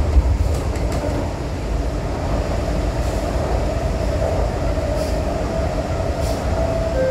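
MTR Kwun Tong Line C-Train metro train running between stations: a steady low rumble, with a tone that rises slightly in pitch from about four seconds in and a couple of faint clicks.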